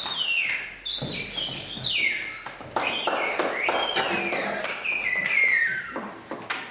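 A run of high whistles, each gliding down in steps from very high to mid pitch, about one a second, with a few light taps among them.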